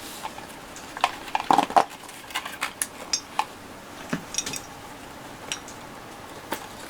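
Irregular light clicks and clinks of small hard parts being handled, with a short cluster of knocks between one and two seconds in.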